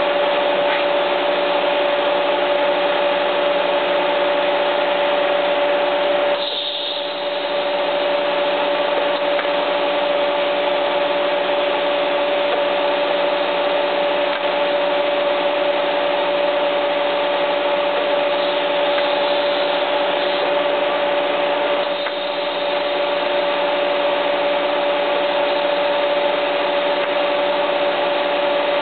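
Steady hiss and hum of a Miller Dynasty 200 inverter TIG welding setup while stainless steel braided wire ends are melted into balls at 3 amps, with a steady whine running through it. The sound dips briefly twice, about a quarter of the way in and again about three-quarters through.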